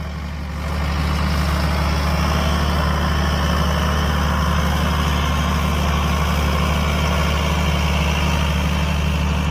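An engine idling steadily with a deep, even drone, getting louder about a second in.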